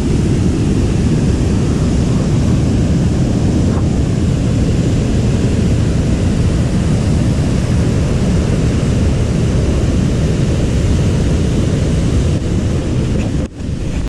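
Steady rushing of a waterfall and stream pouring over boulders, a continuous loud water noise. It cuts off abruptly near the end.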